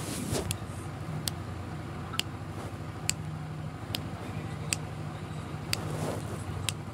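Kitten purring while being stroked: a steady low rumble with brief breaks every second or two as it breathes. A sharp tick repeats a little faster than once a second.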